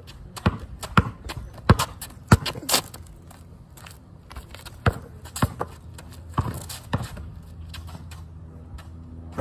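Basketball bouncing on asphalt: a quick run of sharp thumps in the first three seconds, then several more after a pause of about two seconds.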